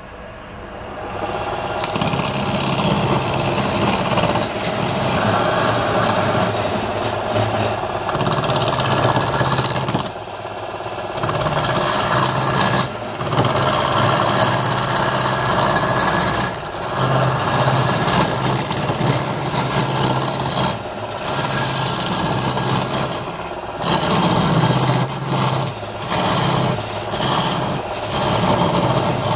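Wood lathe spinning up, then a hand-held turning tool scraping against the spinning wooden blank with a steady low motor hum underneath. The scraping breaks off briefly every few seconds as the tool is lifted from the wood.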